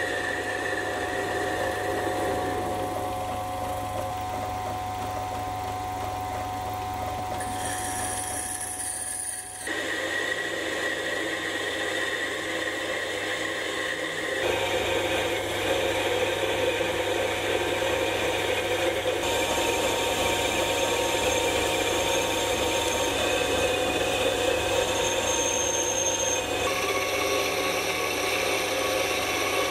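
Sieg C3 mini metal lathe running, a carbide-insert tool turning down a cold rolled mild steel rod. The motor and cutting noise is steady, with a few abrupt shifts in tone as the cut changes.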